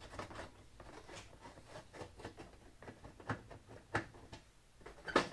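Faint clicks and light scraping as a screwdriver backs a Phillips screw out of a fluorescent light fixture and the metal fixture is handled. A few sharper knocks come about three, four and five seconds in.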